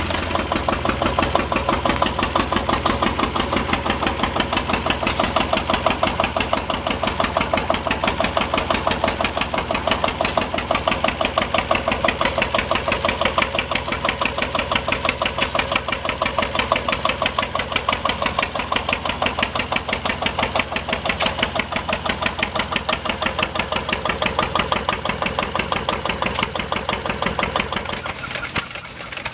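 An engine running steadily with a fast, even chugging beat, dipping briefly near the end.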